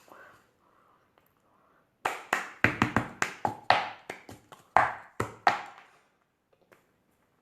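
A quick run of about a dozen sharp hand strikes, three or four a second, starting about two seconds in and stopping after about four seconds.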